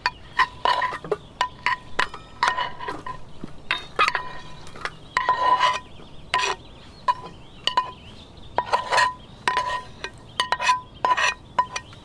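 Metal spatula scraping and knocking against a frying pan and a stainless steel bowl as food is scraped from one into the other. Many quick metal clinks, each with a short ringing tone.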